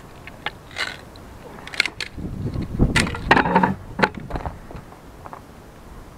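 Dry sticks crunching and snapping close to the microphone as someone handles firewood or steps among it, with scattered clicks and a louder cluster of crunching about two to four seconds in.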